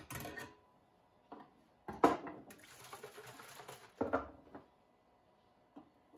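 Handling sounds of a metal wood-stain can on a wooden workbench: several knocks and scrapes, the loudest about two seconds in, a stretch of rustling noise, another knock cluster around four seconds, then faint metal clicks near the end as a thin tool pries at the lid.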